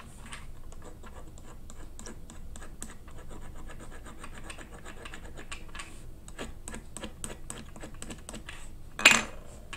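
A run of light, irregular clicks and scratches, several a second, from work at a desk while a word is being written down. One louder brushing sound comes about nine seconds in.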